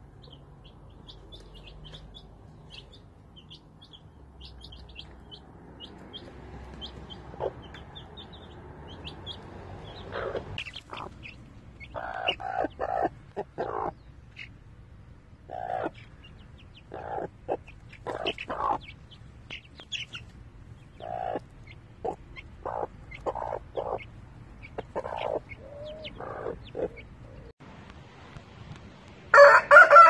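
Chicks peeping faintly in short high cheeps, then a hen clucking in short, uneven calls from about ten seconds in. Near the end a rooster crows loudly.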